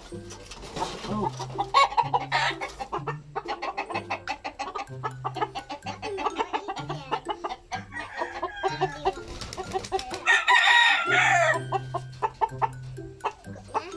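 Chickens clucking in quick short calls, and a rooster crows once, about ten seconds in, for roughly a second and a half, its call dropping in pitch at the end.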